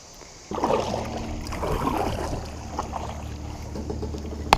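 Water splashing and sloshing around a kayak, busiest for the first couple of seconds, over a steady low rumble, with one sharp click near the end.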